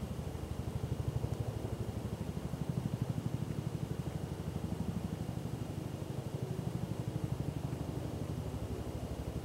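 Steady low drone with a fast, even pulse, like a motor idling, running under everything.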